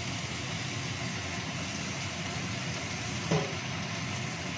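Vegetables (sliced chillies, onion and tomato) frying in a wok on a gas stove: a steady sizzle and burner noise, with one short knock about three seconds in.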